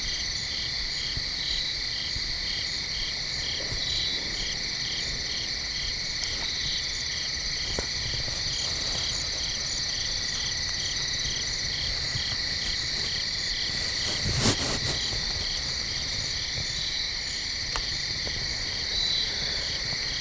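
Evening chorus of crickets and other insects trilling steadily, with one caller pulsing about two to three times a second. About fourteen seconds in comes a single brief knock.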